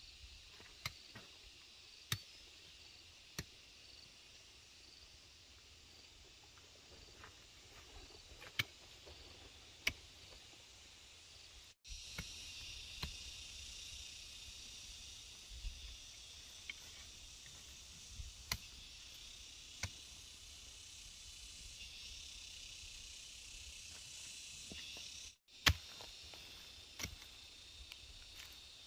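Insects chirring steadily in the background, louder after about twelve seconds, with scattered sharp clicks and taps every second or two and one louder knock near the end.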